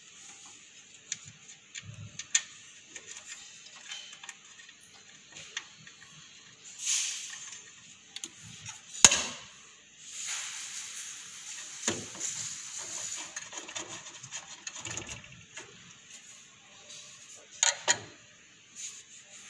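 Handling and fitting of a sheet-metal power control unit for a xenon lamp: scattered metal clicks and knocks with stretches of scraping and rubbing. The loudest knock comes about nine seconds in, and two quick clicks come near the end.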